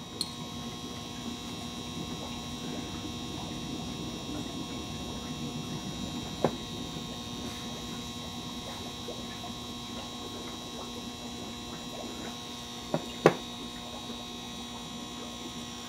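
Steady electrical hum, with a few light clicks as stone points are handled on a leather pad: one about six seconds in and a pair around thirteen seconds in.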